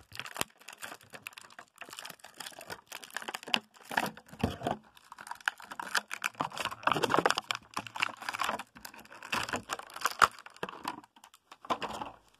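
Cardboard and plastic toy packaging being handled: irregular crinkling, rustling and small clicks and taps.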